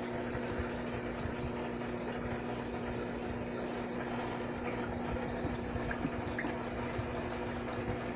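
A small water pump running with a steady hum over a constant trickle of water.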